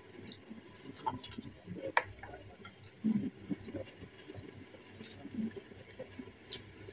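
Light clicks and taps of wooden chopsticks against a ceramic rice bowl and plate while eating, the sharpest click about two seconds in, with soft mouth and chewing noises between them.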